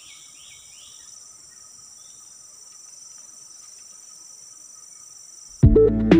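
Rainforest insect chorus: a steady, high-pitched drone that holds without change, with a few quick chirps in the first second. Near the end, loud electronic music with a heavy beat cuts in suddenly and drowns it.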